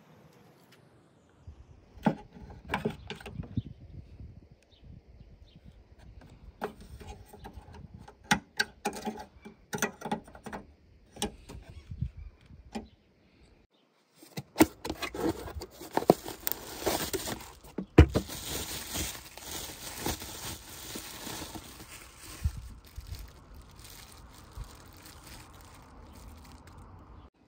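Hands handling a car tailgate lock and its packaging: a run of irregular clicks, taps and small rattles of plastic and metal parts. After a short break about halfway, a cardboard box and the new plastic latch are handled, with rustling, small clicks and one sharp knock.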